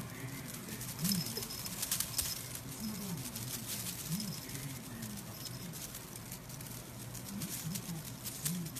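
Kitten playing with a feather wand toy: sharp taps and rustles from the toy and the kitten's paws, loudest between one and two and a half seconds in. Through it come short, low voice-like notes that rise and fall, roughly one a second.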